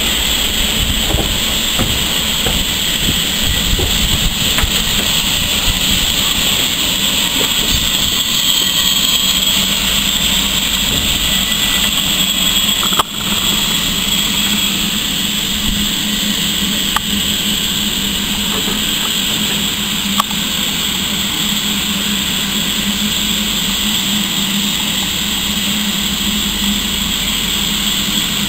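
BR Standard Class 9F steam locomotive 92203 'Black Prince' standing with steam escaping in a loud, steady hiss over a low steady drone, with a brief click about halfway through.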